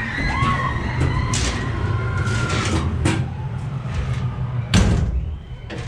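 Fire-truck ride car rolling with a steady low rumble and several sharp knocks and clanks, the loudest near the end.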